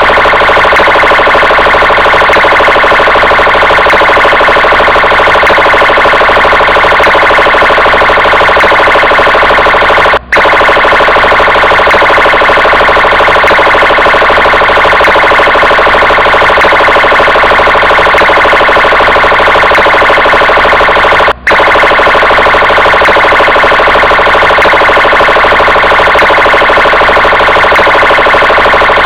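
Police car siren sounding continuously and loudly, a dense electronic tone with many overtones. It breaks off for an instant twice, about ten and twenty-one seconds in, where the recording loops.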